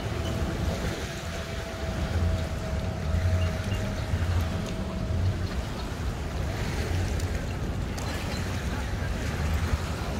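Outdoor boat-ramp ambience: a low, uneven rumble of boat and jet-ski engines mixed with wind buffeting the microphone. A faint steady whine stops about five seconds in.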